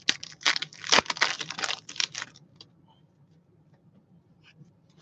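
A trading-card pack wrapper being torn open and crinkled, a quick run of crackles for about the first two seconds, then a few faint ticks as the cards are handled.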